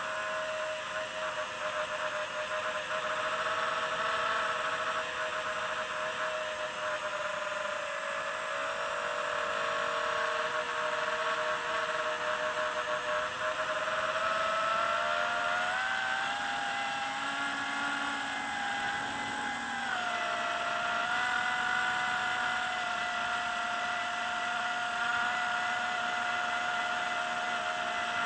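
FPV quadcopter's brushless motors and propellers whining steadily, heard from on board; the pitch climbs about halfway through as the throttle goes up, holds for a few seconds, then drops back.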